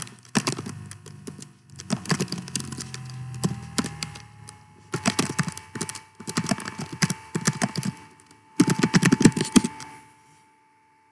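Typing on a computer keyboard: several bursts of rapid keystrokes with short pauses between them, stopping about ten seconds in.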